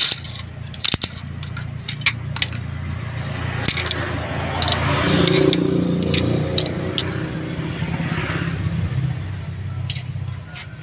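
Sharp metallic clicks and clinks of steel parts being handled as a lock ring is pried off a dump truck's planetary hub and the ring gear is slid off, over a steady low hum that swells to its loudest about halfway through.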